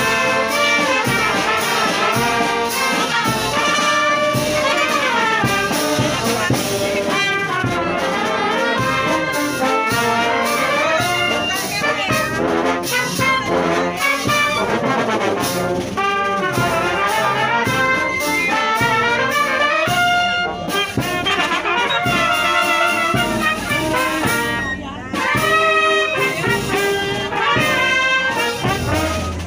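Live brass band playing a tune, with trumpets, trombones, saxophones and a sousaphone. There is a brief break in the music near the end.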